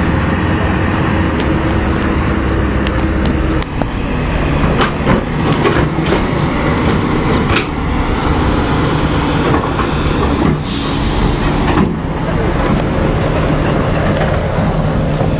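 Diesel engines of several crawler excavators running steadily, with a scattering of sharp knocks and clanks.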